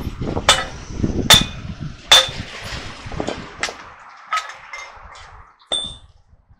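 Steel hammer striking a truck steering knuckle and its kingpin: three loud ringing metal blows a little under a second apart. Then come several lighter metallic clinks as the kingpin is worked loose and the parts are handled.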